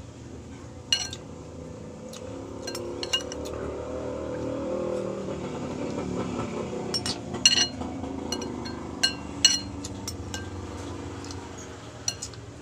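Eating utensils clinking against a plate or bowl while eating: a dozen or so sharp, short ringing clinks at irregular intervals, most of them in the second half.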